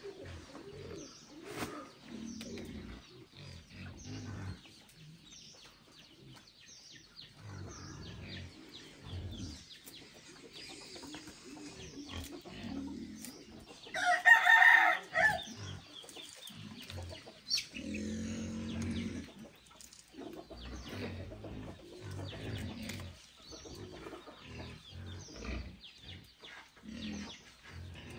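A rooster crows once, loudly, about halfway through. Chickens cluck around it, and there are small cracks and crackles of boiled-egg shells being peeled by hand.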